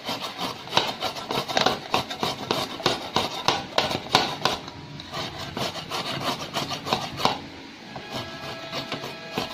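Raw carrot being grated on a flat stainless steel hand grater, quick repeated scraping strokes of the carrot against the metal teeth, growing softer near the end.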